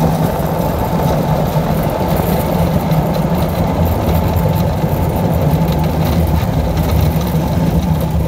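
Steady low engine hum that holds even throughout.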